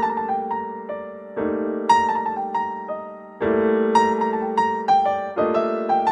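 Calm electric piano music: slow sustained chords changing every second or two, with a simple melody of single struck notes over them.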